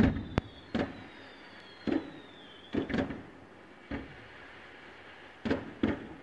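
Fireworks shells bursting over a lake: about eight irregularly spaced booms, each with an echoing tail, the first the loudest. A faint high whistle slides slowly down in pitch during the first few seconds.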